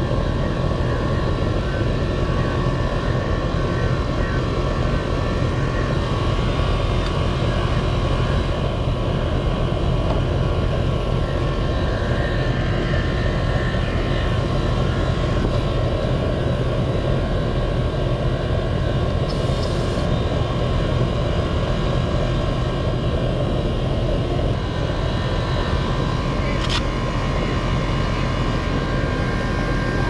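A 4-ton air-conditioning condenser running steadily: fan and compressor giving a constant rushing noise over a low hum.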